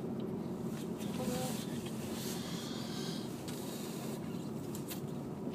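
Steady road and engine noise of a car, heard from inside the cabin while driving.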